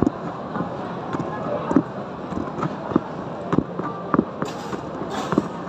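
Steady footsteps thudding about one and a half to two times a second as someone walks with the camera, over the general chatter and hubbub of a crowded street market. A short hiss comes twice near the end.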